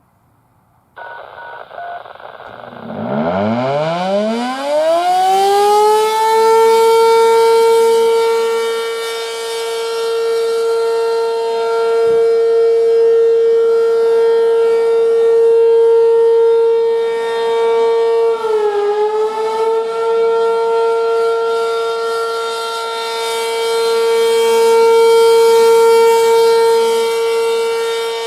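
ACA P-15 electromechanical outdoor warning siren starting up on its steady Alert cycle: a whine that climbs in pitch from low and settles into one loud, steady tone, its loudness slowly rising and falling, with a brief dip in pitch about two-thirds of the way through.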